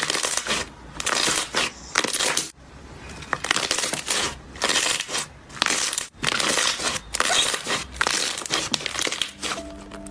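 Slime being squeezed and pressed by hand, giving repeated bursts of crunchy crackling with brief pauses between squeezes. Soft music comes in near the end.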